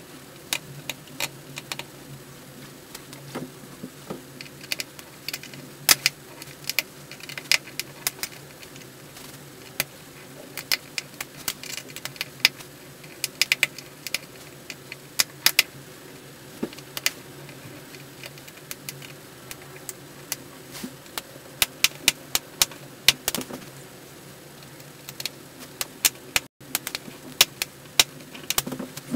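Small screwdriver unscrewing the tiny bottom-case screws of a MacBook Pro: irregular sharp metallic clicks and ticks, some in quick clusters, as the bit seats and turns and the screws are handled.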